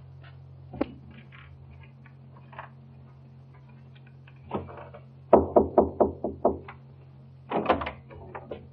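Knocking on a door: a quick run of about seven raps a little past halfway, then a few more shortly after, over a steady low hum.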